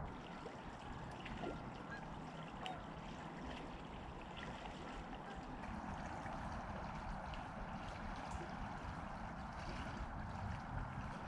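Steady wash of flowing river water, with a few faint ticks.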